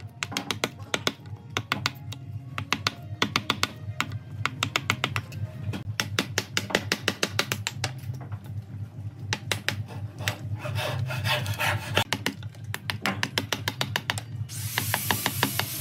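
Wooden mallet striking a steel chisel over and over, several blows a second, as it cuts a notch into dry tree-stump wood. About a second before the end a steady hiss joins the strikes.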